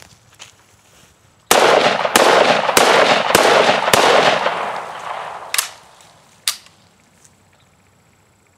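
Five rapid rifle shots from a Zastava ZPAP M90PS in 5.56 NATO, about 0.6 s apart, starting about a second and a half in, their echoes running together and fading over the next second or so. Two fainter sharp cracks follow about a second apart.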